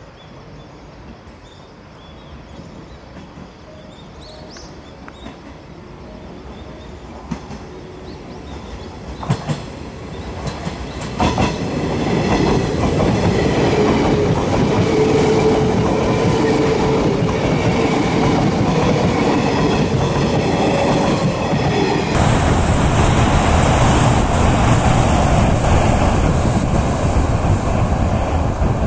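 381 series electric limited express train approaching and passing at high speed. Its running noise builds over the first dozen seconds, with sharp clicks of wheels over rail joints about ten seconds in. Then comes a loud, steady rush with clickety-clack and a faint steady tone through the middle of the pass.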